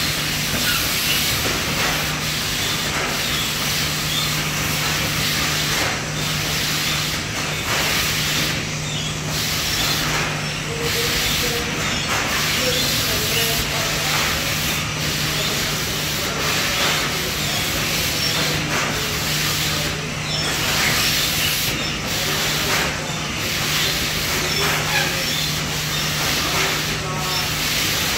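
Steady machine noise of an automated piadina stacking line: delta pick-and-place robots and conveyor belts running, heard as a strong hiss with a steady low hum underneath. The hiss dips briefly every few seconds.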